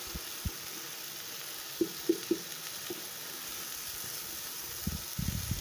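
Vegetables (garden egg with sweet potatoes, onions and peppers) sizzling steadily in a frying pan, with a few light knocks about two seconds in and again near the end.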